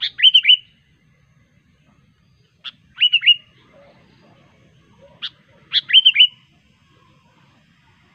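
Sooty-headed bulbul (kutilang) singing three short phrases a few seconds apart. Each phrase is a sharp note followed by two or three quick, downslurred whistles.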